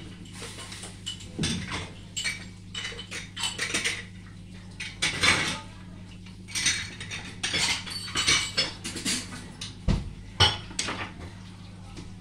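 Dishes, pots and metal cutlery clattering and clinking in irregular knocks, over a steady low hum.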